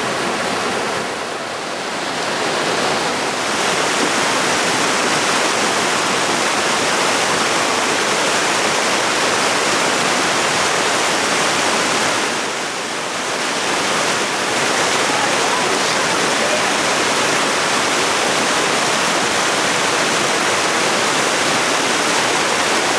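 Acheron river water rushing, a loud, steady, even rush that eases briefly twice.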